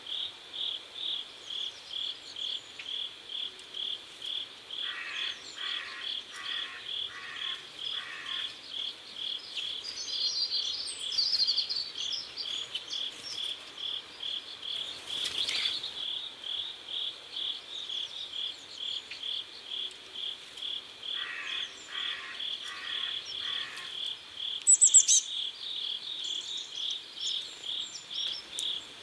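Crickets chirping in a steady, even rhythm, about three chirps a second. Twice, a lower rasping call of five pulses joins in, and brief high bird chirps come in around the middle and again near the end.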